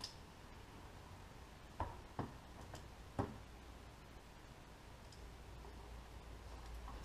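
A few light clicks and taps of hand tools at a workbench: three sharp ones around two to three seconds in and a faint one later, over a faint low hum.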